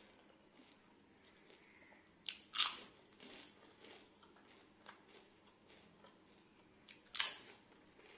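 A person biting into crisp food: two loud crunches, about two and a half seconds in and again about seven seconds in, with softer chewing crackles between.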